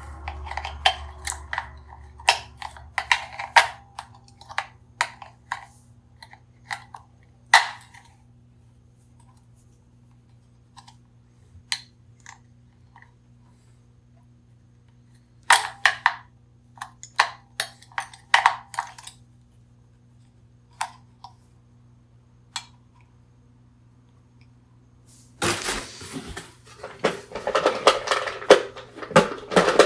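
Handling noise: scattered sharp clicks and taps of small hard objects being picked up and set down, in two clusters with a quiet gap between, then a denser run of clattering and rustling near the end.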